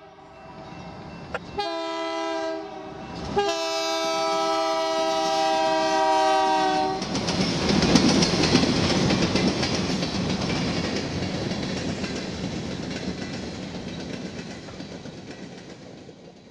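Train horn sounding three blasts, the last and longest lasting about three and a half seconds, then the train rumbling past and slowly fading away.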